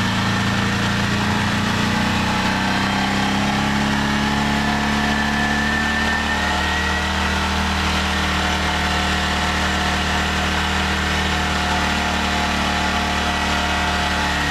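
2010 Arctic Cat Prowler 550 UTV's single-cylinder engine running steadily under load while it pushes a lowered snow plow, heard from inside its canvas cab. A thin high whine sits over the engine note, and the engine note shifts lower about three seconds in.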